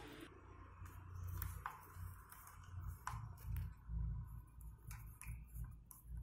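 Screwdriver working the screws out of a speaker cabinet's back panel: faint scattered clicks and scrapes of the tip in the screw heads, with dull handling bumps throughout.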